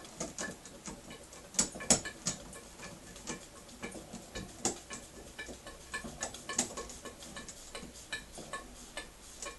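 Märklin 4097 model steam engine unit running slowly and unevenly on steam from a small homemade boiler, giving a string of irregular clicks and ticks, a few a second, with the sharpest pair about two seconds in. It is labouring under its rope-winding load with not quite enough boiler pressure.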